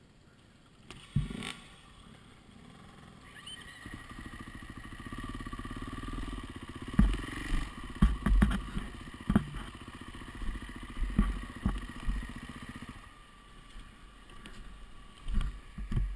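Enduro dirt bike engine running at low revs as the bike picks its way along a rough trail, with sharp knocks and clunks from the bike over the rocky ground. The engine comes in a few seconds in and drops away near the end.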